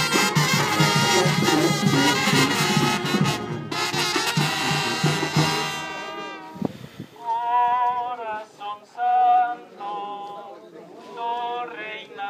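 A village brass band with sousaphone, saxophone and trumpets playing a lively tune over a steady bass beat, stopping abruptly about six seconds in. After it, high singing comes in short phrases with pauses between them.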